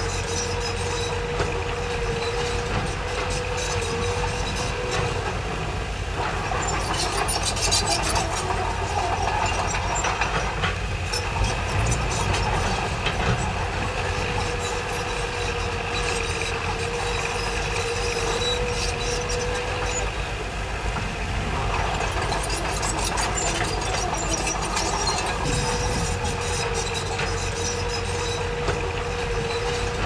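Crawler bulldozer's diesel engine running steadily at work, with a steady whine that drops out for a few seconds at a time. Two stretches of louder rattling and clanking, about six seconds in and again about twenty-two seconds in, typical of steel tracks on the move.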